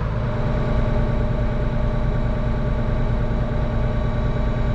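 Heavy diesel harvest machinery running steadily, an even engine hum with a low pulsing about four times a second.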